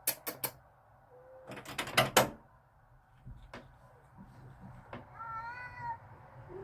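Several sharp clicks or knocks in the first two seconds. About five seconds in comes a cat's single drawn-out, wavering yowl: the threat call of a cat squaring up to another for a fight.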